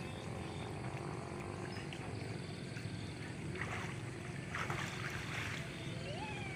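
Steady low hum of a boat engine on the river, with two brief splashing rustles in the middle as the net is handled and a few short sliding bird calls near the end.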